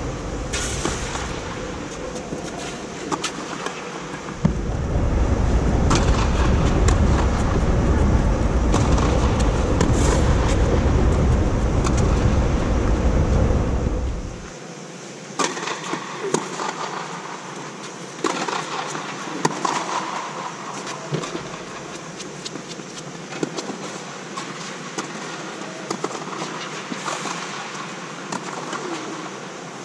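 Tennis rally on a clay court inside an air-supported dome: sharp racket strikes and ball bounces at irregular intervals over a steady hiss. A loud low rumble comes in about four seconds in and stops suddenly about ten seconds later.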